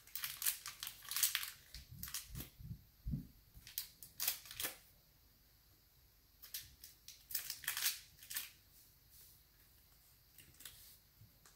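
Small plastic toy package crinkling and tearing as it is opened by hand, in short bursts with a quiet stretch in the middle.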